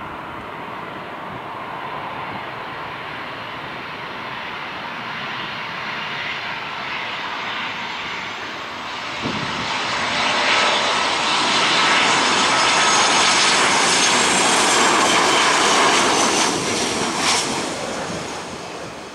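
Boeing 737-800's CFM56-7B turbofan engines whining as the airliner comes in to land close by. The noise builds steadily, is loudest for several seconds about halfway through, and fades near the end as the jet rolls out on the runway.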